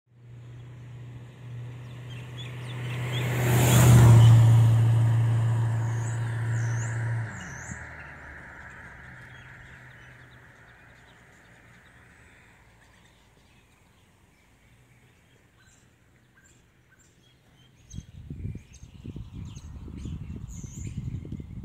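A vehicle passes close by, loudest about four seconds in; its low engine hum cuts off a few seconds later and the road noise fades away slowly. Birds chirp faintly, and near the end low rumbling bumps hit the microphone.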